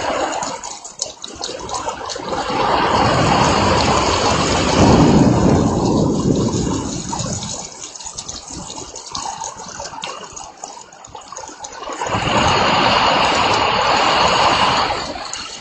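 Rainstorm: heavy rain and gusting wind that swell loud twice, with a heavy low rumble in the first gust, then ease off.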